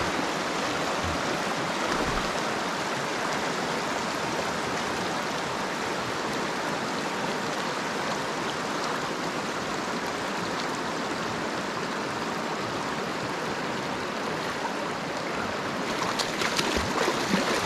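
Shallow river running steadily over gravel riffles and rapids. Near the end a hooked coho salmon splashes in the shallow water.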